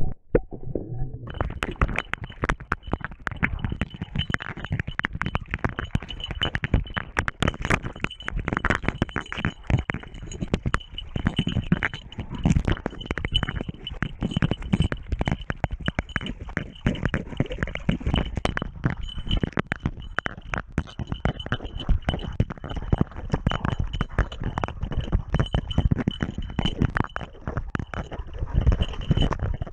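Continuous close thumping, scraping and rubbing from a camera worn by a hunting dog grappling with a wild boar in a shallow stream, with water splashing. It starts about a second in.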